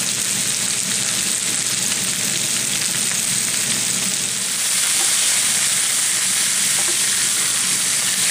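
Meatballs sizzling as they brown in a cast iron pan: a steady frying hiss that grows a little louder about halfway through.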